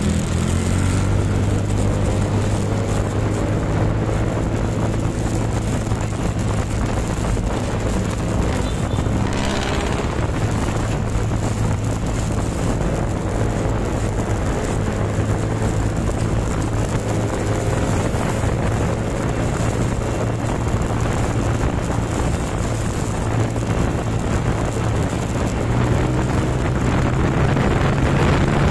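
Motorcycle engine running steadily under the rider as it gathers speed, its pitch gliding up now and then, over a constant rush of wind and road noise.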